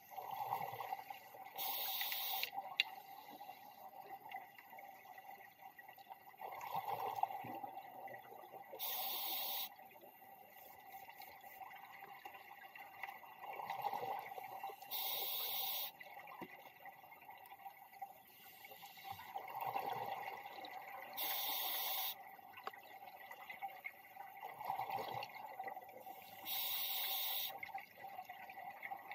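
Scuba diver breathing through a regulator underwater: each breath is a bubbling gurgle followed by an even hiss about a second long. Five breaths come at a steady pace, about one every six seconds.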